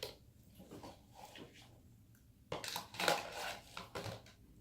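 Crinkling and rustling of items being handled, starting a little past halfway in and lasting about a second and a half after a quiet stretch.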